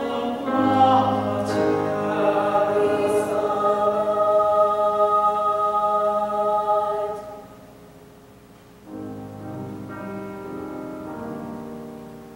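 Mixed chamber choir singing sustained chords. The singing fades out about seven seconds in, and after a short pause softer sustained chords come in about nine seconds in.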